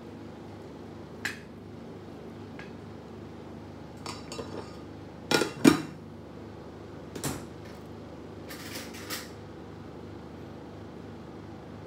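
Ceramic dishes and cutlery clinking and knocking, a handful of separate strikes with the loudest cluster a little over five seconds in, over a faint steady hum.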